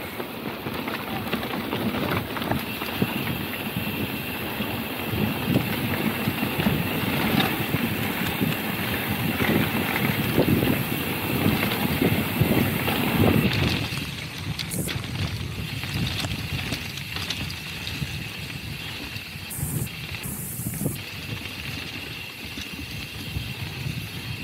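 Rumble and rattle of a mountain bike riding over a rough trail, heavier at first and easing off about halfway through.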